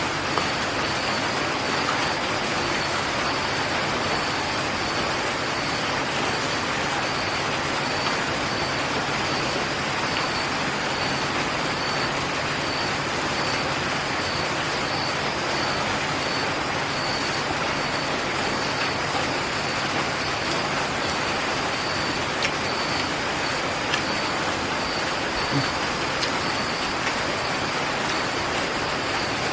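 Steady rushing background noise with a faint high chirp that pulses at an even pace, and a few soft clicks.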